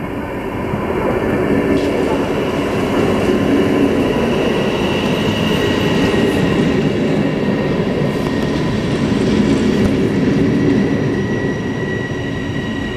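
Aeroexpress double-deck electric train, a Stadler KISS, running past close by: a steady rumble of wheels on rails with a thin high whine above it, swelling after the first second and easing off near the end.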